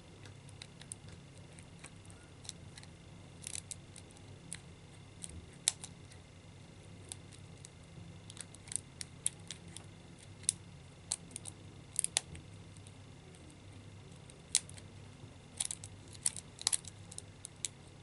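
Faint, irregular metallic clicks and scrapes of a hook pick and tension tool working inside a cheap 30 mm padlock's keyway, a few clicks louder than the rest, over a faint steady hum.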